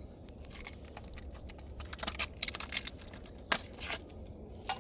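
Packaging crinkling and rustling as it is handled, with irregular sharp crackles and clicks, loudest in the middle.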